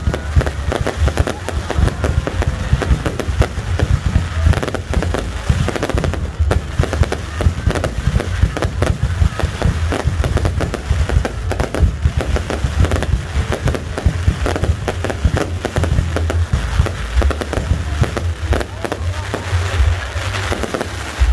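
Fireworks going off in a dense, continuous barrage of bangs and crackles, with a heavy low rumble under them.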